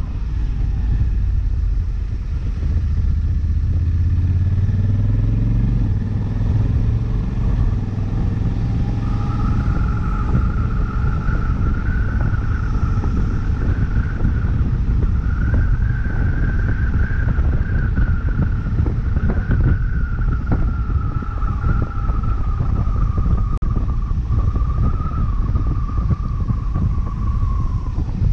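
Honda CRF1100L Africa Twin's parallel-twin engine running under way over a steady low rumble. The pitch rises a few seconds in as the motorcycle accelerates. A wavering high whine runs from about a third of the way through.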